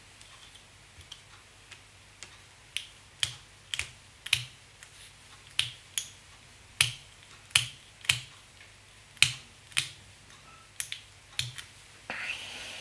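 Sharp, irregular clicks, roughly one or two a second, as tight turns of GSP tying thread are wound from a bobbin holder around the fly's head. A short rustle follows near the end.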